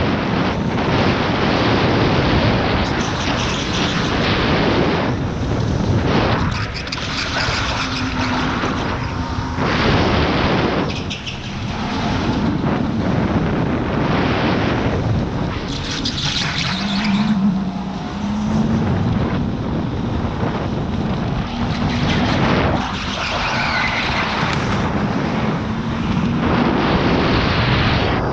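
Electric go-kart at speed: a loud, steady rush of wind on the onboard camera microphone and tyre noise, dipping briefly every few seconds, with a faint steady tone from the kart now and then.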